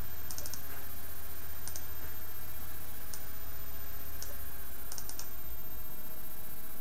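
Scattered sharp clicks of computer mouse buttons and keys, coming singly and in quick runs of two to four, over a steady background hiss and low electrical hum.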